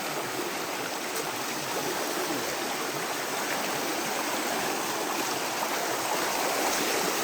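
Rushing river water at a waterfall, a steady, even wash.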